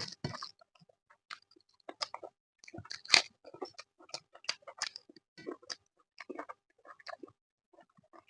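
A person chewing food close to the microphone, with irregular wet smacks and clicks of the mouth; the loudest smack comes about three seconds in.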